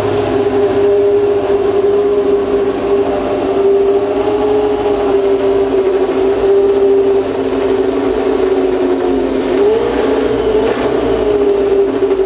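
Ford Cosworth DFV 3.0-litre V8 running steadily in a historic Formula One car, with two small, brief rises in revs near the end.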